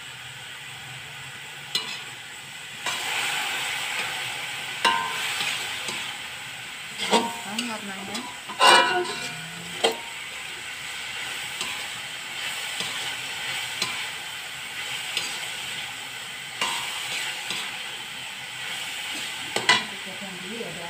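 Tempeh pieces coated in sweet soy sauce sizzling steadily in a metal wok while a metal spatula stirs and scrapes them around. Sharp clacks of the spatula against the wok come every few seconds, the loudest about nine seconds in.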